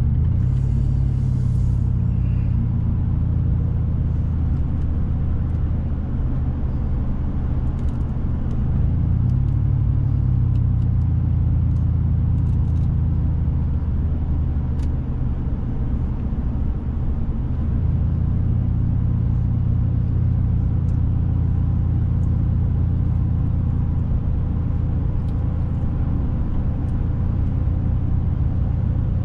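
Car driving along a road, heard from inside: a steady low engine and road rumble whose pitch shifts a few times.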